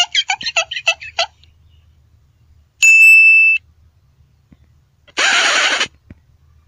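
Cartoon comedy sound effects played one after another: a quick run of about ten short plinking notes, then a held high beep about three seconds in, then a short hissing burst near the end.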